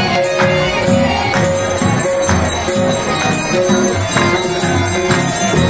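Music with a steady beat and jingling, bell-like percussion.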